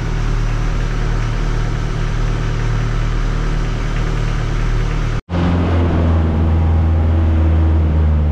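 A motorboat's engine running steadily with a low drone. A little over five seconds in, the sound cuts out for an instant and the engine resumes at a slightly different pitch.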